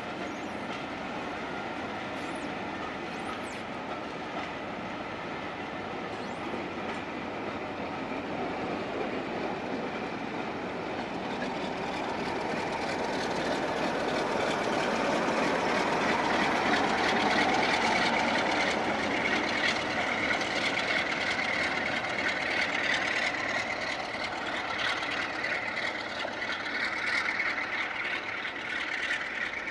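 Steam-hauled passenger train running past over curved track, the rolling noise of the locomotive and coaches swelling to its loudest about halfway through and easing off as it draws away. A steady high note joins in during the second half.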